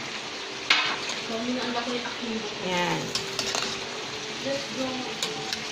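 A long metal ladle stirring vegetables in a cooking pot, clinking and scraping against the pot a few times, the loudest clink about a second in, over a steady sizzling hiss from the pot on the stove.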